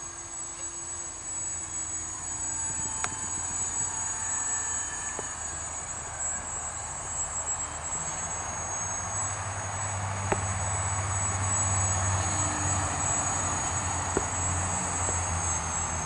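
A small electric RC foam plane's motor and propeller running, a steady high whine over a rushing buzz that grows louder about halfway through, with the pitch rising and falling as the throttle changes.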